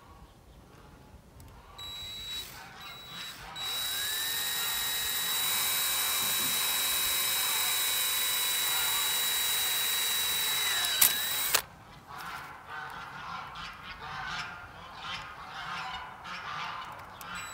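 Cordless drill driving a screw into a wooden base board. The motor starts softly about two seconds in and runs at a steady high whine for about eight seconds. Its pitch dips just before it stops suddenly.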